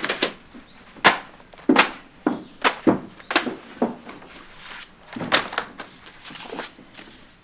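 A series of about a dozen sharp whacks and thuds, irregularly spaced, the loudest about a second in.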